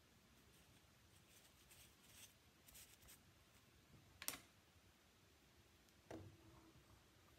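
Quiet handling of plastic quick-release bar clamps on a glued-up wooden block: faint rattles and small clicks, then one sharp click about four seconds in and a knock with a brief ring about six seconds in.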